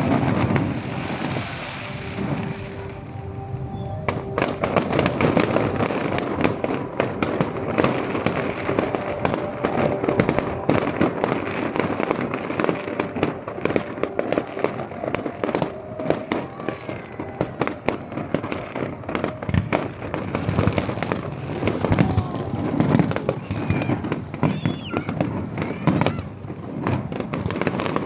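Fireworks salute bursting overhead: a dense, nearly continuous run of bangs and crackles starting about four seconds in, with music playing underneath.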